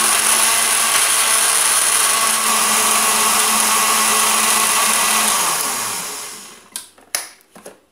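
Electric countertop blender running at a steady speed, grinding lemon juice with onion, bell peppers and garlic into a wet seasoning paste. About five seconds in the motor is switched off and winds down with falling pitch, followed by a few sharp knocks.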